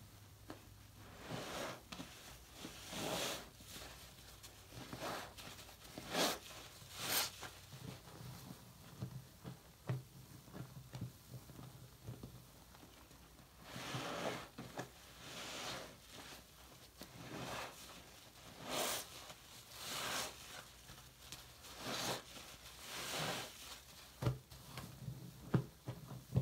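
A foam-soaked sponge being squeezed and kneaded in a sink full of thick lather: repeated wet squelches with crackling bubbles, roughly one squeeze every second or so, with a quieter pause about a third of the way in.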